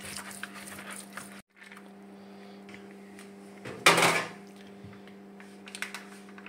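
Kitchen handling sounds over a steady low hum: one loud short knock about four seconds in, and a few light clicks near the end.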